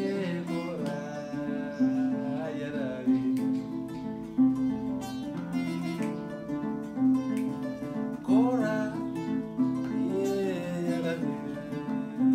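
Music: acoustic guitar picked steadily, with a voice singing over it.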